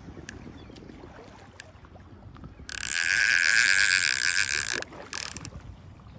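Fishing reel whirring steadily for about two seconds, starting just under three seconds in, with a shorter burst a little later, as a hooked fish is played in on a bent rod.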